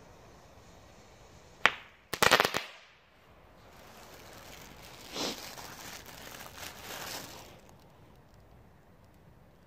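Small consumer firework going off: one sharp bang, then half a second later a rapid string of loud cracks, followed by a few seconds of softer crackling and hissing.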